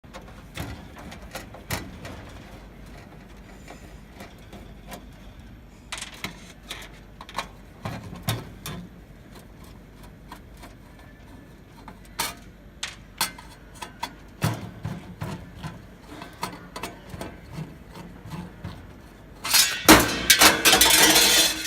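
Scattered clicks, taps and knocks of hands and tools working on the panel of a Crane vending machine, then a loud rattling clatter lasting about two seconds near the end.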